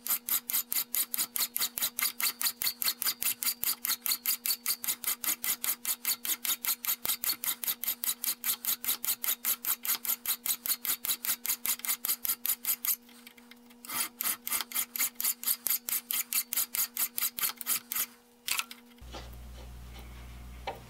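Hand file rasping in even strokes across the square threads of a steel C-clamp screw held in a vise, about three and a half strokes a second, cleaning scale, burrs and excess silver solder off the threads. The filing breaks off for about a second partway through, resumes, then stops a couple of seconds before the end.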